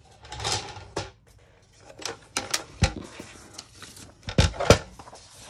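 Paper sheets rustling and sliding on a cutting mat, then a run of sharp clicks and knocks as a sliding paper trimmer is set down and handled, the loudest two knocks coming close together near the end.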